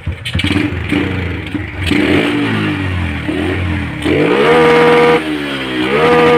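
Yamaha Jupiter MX motorcycle engine running unevenly at low revs, then revved twice, each time rising quickly to a high, steady pitch held for about a second before dropping back.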